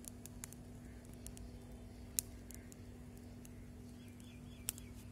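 Faint, sparse sharp crackles from a small wood fire roasting a whole hanging chicken, over a steady low hum. Near the end a bird gives four quick chirps.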